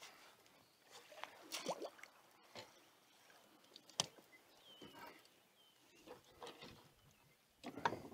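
Hooked largemouth bass splashing at the surface and being landed in a plastic kayak: scattered splashes and thrashing, a sharp knock about four seconds in as it comes aboard, and a quick cluster of knocks and rattles near the end.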